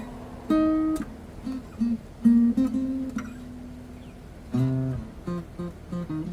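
Acoustic guitar playing single picked notes, then a chord strummed about four and a half seconds in, followed by a quicker run of single notes.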